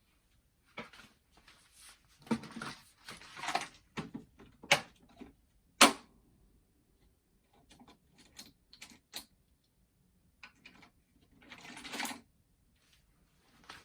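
Irregular clicks, taps and short scrapes of small parts being handled on a boombox's cassette deck mechanism while the screws holding its motor are taken out. The sharpest click comes about six seconds in, and a longer scrape near the end.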